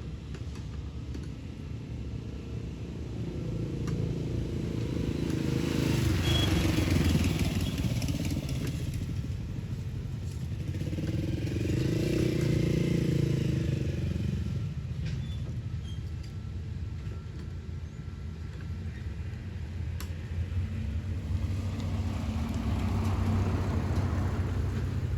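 Road vehicles passing one after another, engine and tyre noise swelling and fading three times, loudest about a quarter of the way in, midway and near the end.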